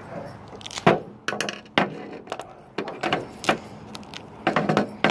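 Irregular sharp clicks, knocks and rustling from handling a phone taped inside fidget spinners while the tape is cut and pulled off.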